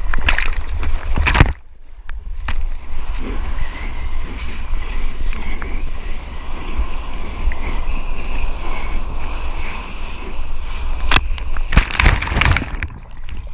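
Seawater splashing and sloshing against a board-mounted action camera as a surfer paddles out. Loud splashes come in the first second and a half, then a steadier wash of water, then heavy splashing again near the end as the camera is pushed through breaking whitewater.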